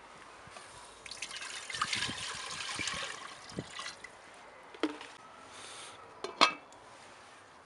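Water poured from a plastic jug into a metal pot, splashing for about three seconds. A knock follows, then a sharp clink as a glass lid is set on the pot.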